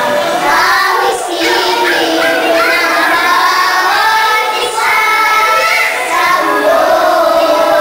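A small group of young girls singing a song together, holding a long note near the end.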